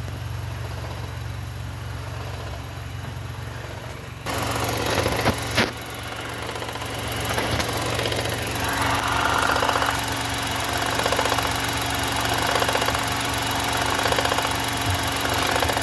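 VW Up! TSI's three-cylinder engine idling with the clutch pedal down, then about four seconds in a louder rough, fluttering rattle from the gearbox comes in and keeps going, swelling and fading. The rattle comes with the clutch engaged and goes away when it is pressed: the sign of a damaged double clutch bearing.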